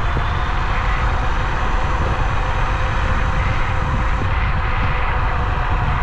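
Bluetran Lightning 72V electric scooter riding along at speed: heavy wind buffeting on the microphone and road noise, with a steady thin whine from its motor.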